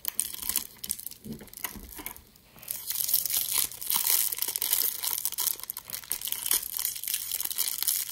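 Thin pink wrapper on a small toy accessory being crinkled and torn open by hand. A few light handling clicks come first; from about three seconds in comes a continuous crackle of crumpling and tearing.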